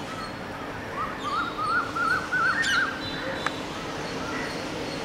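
A bird singing a quick run of about ten up-and-down notes that climb in pitch, over a steady low background hum.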